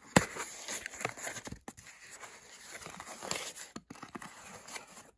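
Small corrugated cardboard shipping box being opened by hand: packing tape tearing and cardboard flaps scraping and rustling, with a sharp snap just after the start.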